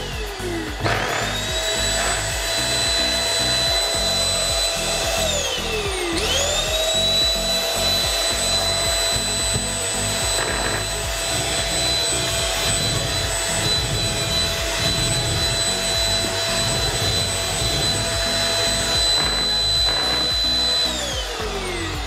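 SilverCrest SMS 300 A1 handheld anti-dust-mite vacuum cleaner's 300 W motor, running loud. It whines up to speed about a second in and runs steadily. It winds down around five seconds, starts up again a moment later, and runs until it winds down near the end. It is sucking small particles off a table.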